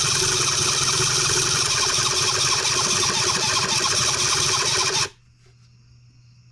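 Electric starter cranking a Cison L4-175 model four-cylinder flathead engine steadily without it catching, then stopping abruptly about five seconds in. The engine is possibly flooded with fuel.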